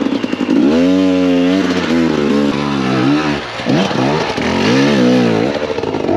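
Enduro dirt bike engine being revved, its pitch rising and falling four or five times as the throttle is worked, with a briefly held note about a second in.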